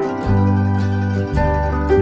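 Background music: a melody of short notes over deep bass notes that change about once a second, with a light ticking beat.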